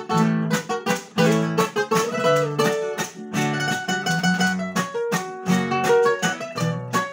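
A requinto and an acoustic guitar playing an instrumental passage: the requinto picks the melody over the guitar's bass notes and chords.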